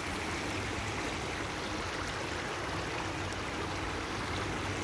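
Small, shallow woodland creek running steadily over rocks.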